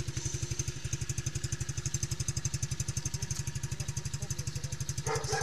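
Mowgli Simple 7+ kids' ATV's 125 cc four-stroke petrol engine idling with an even, steady beat.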